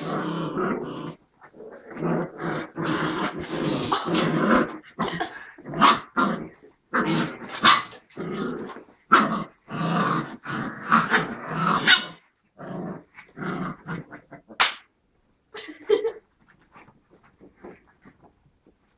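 White Großspitz puppies, about six and a half weeks old, growling and barking as they play-fight. There is a dense flurry for the first twelve seconds or so, which thins to scattered short sounds and dies away near the end.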